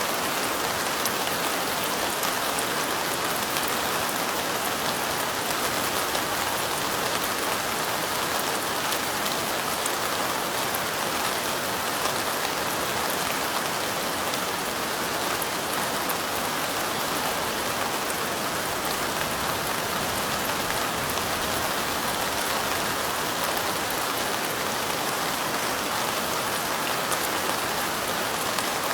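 Steady light rain falling, a continuous even hiss of drops with fine ticks of individual drops throughout.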